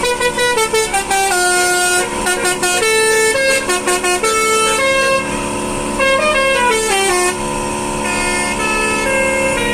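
Basuri telolet horn, a multi-trumpet car air horn, playing a melody: a quick run of stepping notes over a steady low drone, turning to longer held notes near the end.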